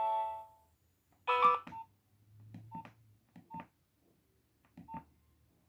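Nokia 1600 mobile phone: a ringtone stops about half a second in, then keypad buttons are pressed about five times, each press giving a short beep and a click, the first one loudest.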